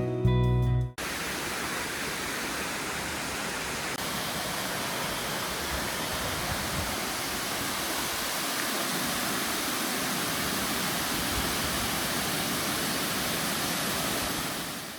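Background music stops about a second in, giving way to the steady rush of a waterfall's falling water, which fades out near the end.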